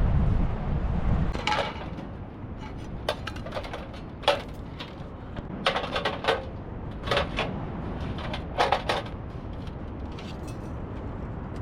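Irregular light clicks and clatters of hard objects being handled, with a low rumble in the first second or so.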